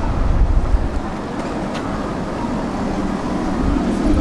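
A tram rolling in on street rails and drawing up close by, a steady low rumble that grows louder near the end as it comes alongside.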